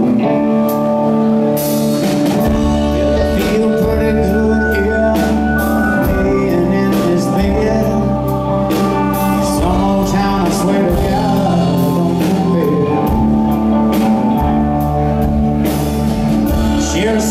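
Southern rock band playing live: electric guitars over bass and a drum kit keeping a steady beat, with no break in the music.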